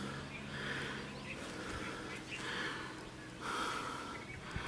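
A person breathing heavily, with a soft breath sound about once a second.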